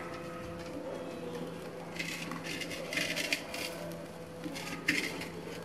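Hinged wire grill basket holding fish, clattering as it is turned over on a charcoal stove: a run of sharp metallic clicks and rattles between about two and five seconds in, over a steady low hum.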